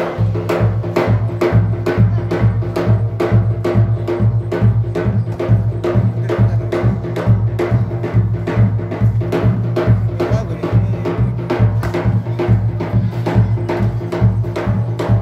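A large two-headed drum beaten in a steady, fast rhythm: sharp, even strikes over a deep, constant boom.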